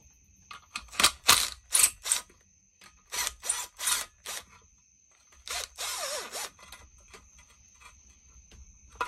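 Hand ratchet wrench clicking in two short runs of about four clicks each while the bolts holding a chainsaw's block-off plate are loosened, followed by a brief scraping rasp about halfway through as the plate comes free.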